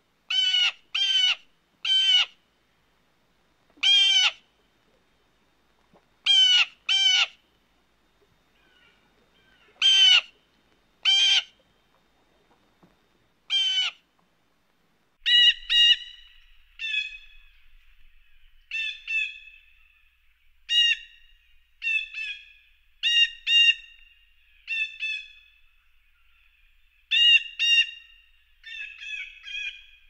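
Blue jays calling in short, harsh, repeated calls. For the first half the calls come in twos and threes with gaps between; about halfway through they change to a different, clearer call, repeated in quicker twos and threes over a faint hiss.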